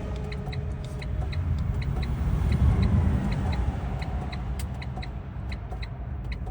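Steady low rumble of passing road traffic, with a quick, slightly uneven high ticking running through it.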